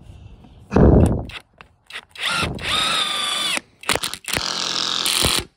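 Cordless impact running the top nut down onto a car strut's shaft, drawing the coil spring back into its top mount, in two runs of whirring, the second shorter. Each run slows as it ends. A loud low thump comes about a second in.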